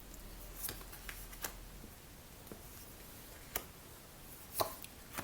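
A few faint, short clicks and ticks scattered over quiet room tone, the clearest about three and a half seconds in and again about a second later.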